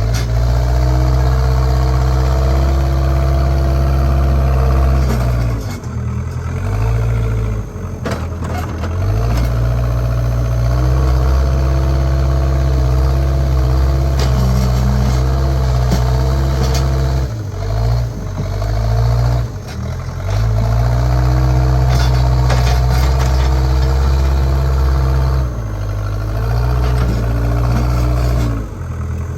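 JCB backhoe loader's diesel engine running steadily under load, its note sagging briefly and recovering several times as the working load changes, with a few short metal knocks in the middle.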